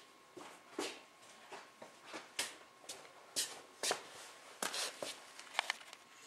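Scattered light clicks, taps and rustles from someone moving about and handling tools in a workshop, irregular and a few a second, over a faint steady hum.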